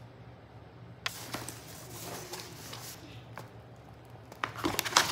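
Plastic packaging and refill pouches rustling and crinkling as they are handled and lifted out of a cardboard box. The sharpest, loudest crinkles come near the end, over a faint steady low hum.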